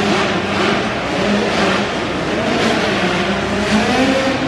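Several dirt bike engines revving on a race track, their pitch rising and falling continuously as the riders work the throttle.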